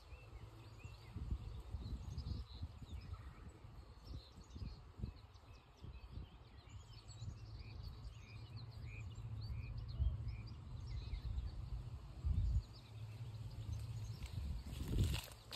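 Small birds chirping in the trees: many short, high calls, thickest in the middle, over a low rumble and occasional bumps on the microphone.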